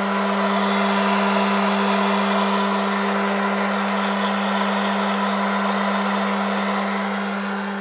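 Hot air popcorn popper roasting coffee beans: its fan motor running with a steady hum under a rush of hot air, the beans tumbling in the chamber at the start of first crack.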